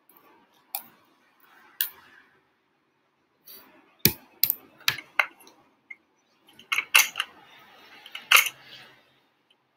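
A series of about nine sharp, irregular clicks from small hard objects being handled, with faint rustling between them in the last few seconds.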